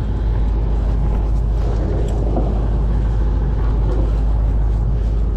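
A boat engine running at a steady, even drone, while the crew haul on the sail halyards.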